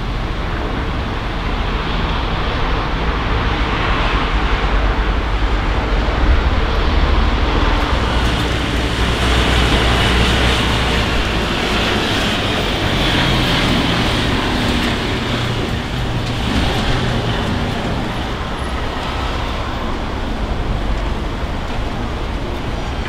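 Steady road traffic noise with a low rumble, swelling into a louder hiss as a vehicle passes through the middle, then fading again.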